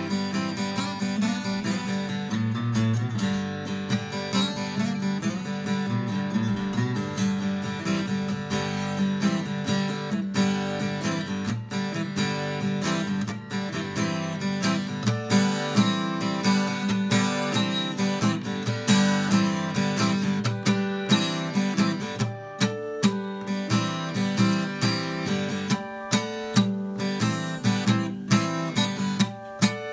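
Cutaway acoustic guitar played solo in a freeform improvisation, strings picked and strummed over a low note that keeps ringing. The strumming grows busier and a little louder about halfway through.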